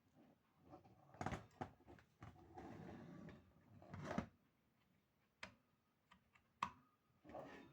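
Scattered clicks and knocks against near silence in a small room, with a brief stretch of rustling noise a couple of seconds in.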